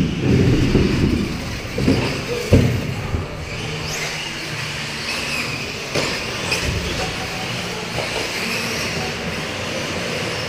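1/8-scale electric RC buggies racing on an indoor track: a steady mix of motor whine and tyre noise. There are a few loud knocks in the first three seconds and occasional sharp clicks later.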